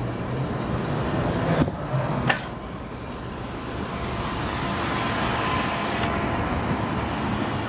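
Steady outdoor city noise from a high rooftop: traffic on the streets below, with a low rumble of wind on the microphone. Two sharp knocks come about one and a half and two and a half seconds in.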